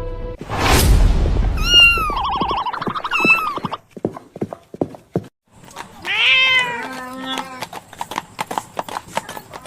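A rising whoosh, then cats meowing several times, the calls bending up and down in pitch, with a run of short clicks between and after the meows.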